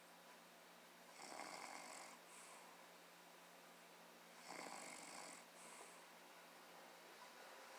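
Faint snoring: two snoring breaths about three seconds apart, each lasting about a second with a short trailing breath after it.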